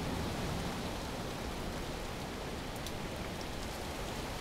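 Steady rain from a passing severe thunderstorm, an even hiss, with a few faint ticks about three seconds in.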